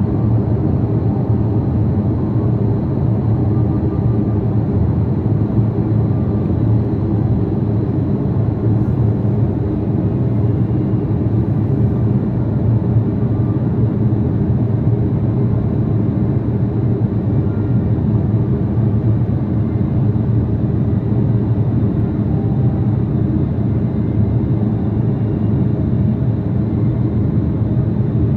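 Steady cabin noise inside an Airbus A330-300 airliner in flight: an even, deep rumble of the engines and airflow that holds constant throughout.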